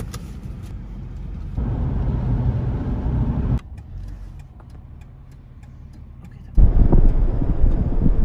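Low road and engine rumble of a car, heard in short clips cut together that switch abruptly every two to three seconds. The loudest, deepest rumble starts near the end, while the car is moving along the road.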